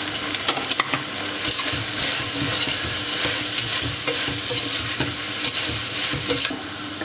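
Onion-tomato masala with mint and coriander sizzling in oil in a stainless steel pot, stirred with clicks and scrapes of the utensil against the pot, the ground chilli and garam masala just added. The sizzle eases a little near the end.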